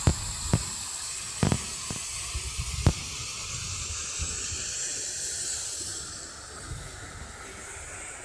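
Waterfall's steady rushing hiss, with a few sharp knocks in the first three seconds; the rush thins a little after about six seconds.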